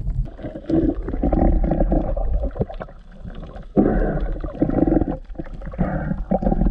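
Muffled, sloshing water noise heard through an action camera's waterproof housing at the sea surface. It comes in three surges, each a second or two long, with short breaks between.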